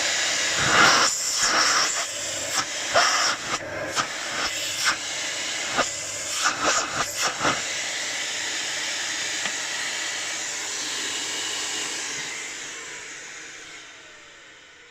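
Miele Cat & Dog canister vacuum cleaner running at maximum suction, a loud airy rush. For the first several seconds the sound repeatedly chokes and surges as a hand seals and releases the suction end against the strong pull. Near the end the motor is switched off and winds down with a falling whine.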